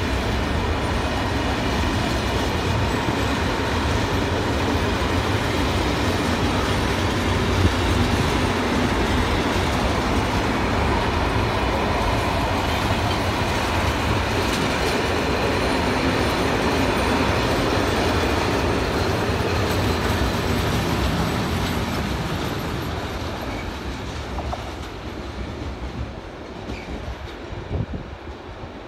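A long container freight train rolling past at close range: wagon wheels rumbling over the rails, with a clickety-clack from the rail joints. About 22 seconds in, the sound begins to fade as the tail of the train moves away.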